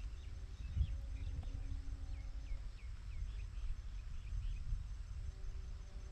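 Rural outdoor ambience: a small bird gives a run of short chirps, each a quick falling note, over an uneven low rumble and a faint steady hum.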